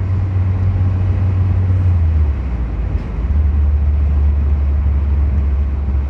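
Car engine and road noise heard inside the cabin of a moving car: a loud, steady low drone that drops to a lower pitch about two seconds in.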